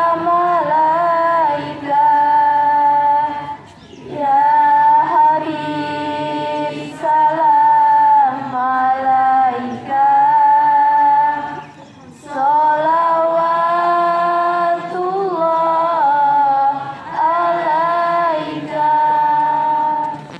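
A young woman's solo voice chanting a melodic Quran recitation. She holds long ornamented phrases and pauses briefly for breath between them.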